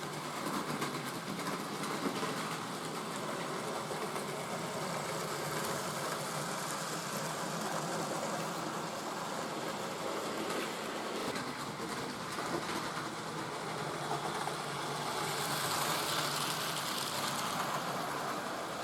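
Model railway train running on its layout: a steady whirring run of the small electric locomotive and its wheels on the track.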